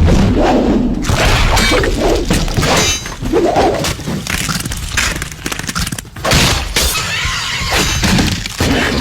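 A dense run of crashes and thuds, like things smashing and breaking, one after another.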